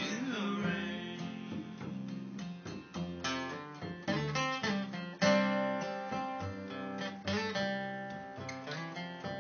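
Acoustic guitar strummed and picked in an instrumental ending to the song, with no singing.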